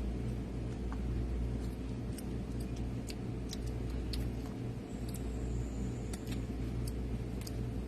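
Steady low mechanical hum with scattered light clicks and ticks, and a brief faint high whistle about five seconds in.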